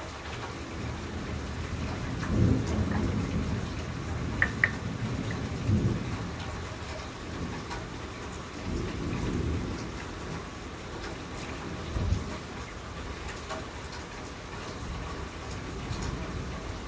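Thunder rumbling several times over steady rain, each roll swelling and fading, with a short, sharper low clap about twelve seconds in. Two brief sharp taps stand out about four and a half seconds in.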